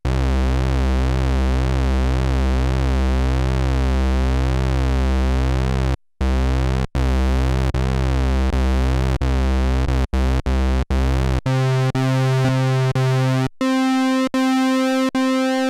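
Roland SH-101 and Roland S-1 synthesizers playing sustained low pulse-wave notes, their tone pulsing in a regular rhythm under LFO modulation. The notes are retriggered several times, and near the end the pitch steps up twice to much higher notes.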